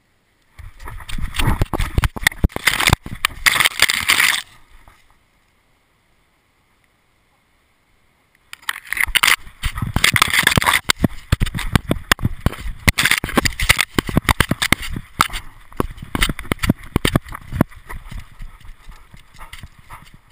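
Dog-mounted camera bouncing as an American Staffordshire terrier runs over dry fallen leaves: dense rattling knocks and leaf rustling from its strides. It goes silent for about three seconds near the middle, then resumes and gradually fades.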